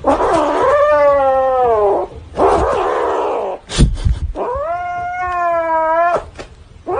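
A cat yowling: two long, drawn-out cries, the first sliding down in pitch, with a rough, noisy stretch between them and a sharp loud knock about four seconds in.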